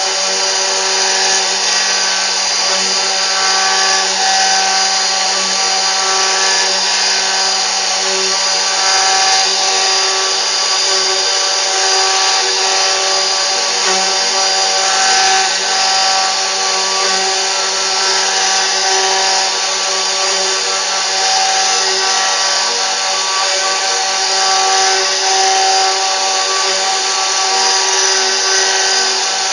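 CNC router running steadily: a constant whine from the spindle over a loud, even hiss.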